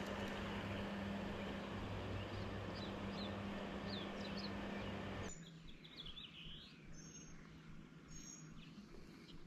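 Birds chirping over a steady low hum and hiss. The hum cuts off suddenly about five seconds in, leaving a quieter background with short, high chirps.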